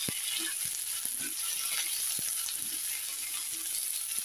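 Chana dal, dry coconut and green chillies frying in a little oil in a black kadai: a steady sizzle, with a steel spoon scraping and clicking against the pan as they are stirred.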